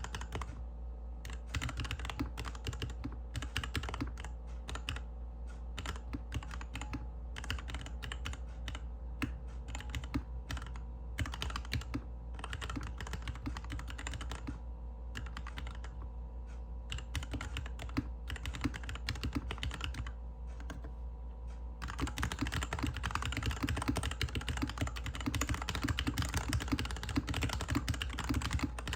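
Typing on a GK61X mechanical keyboard with stock Cherry MX Hyperglide Black linear switches, a stainless steel plate, a plastic case and DSA keycaps, resting on a desk mat. The switches are ones the owner calls still scratchy. Slower typing with short pauses changes to fast, continuous typing about three quarters of the way through.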